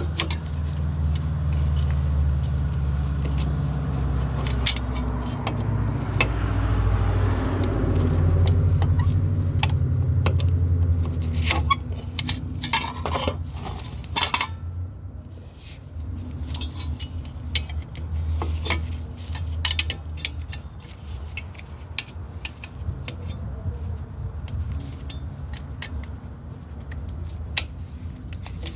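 Steel drum-brake parts and hand tools clinking and clattering in quick, irregular clicks during a rear drum brake job. Under them runs a low rumble like a vehicle engine, steady for the first twelve seconds or so and then coming and going.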